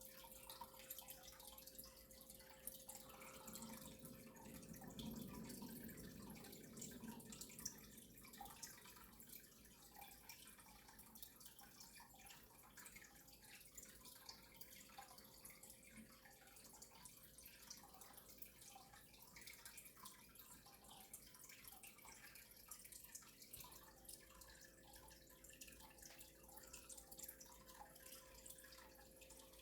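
Near silence: faint room tone with a steady low hum and scattered faint ticks.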